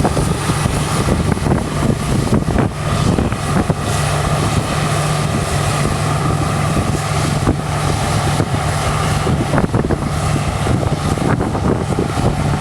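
New Holland CX8070 combine harvester running steadily under load, a deep, even engine drone with irregular crackling over it.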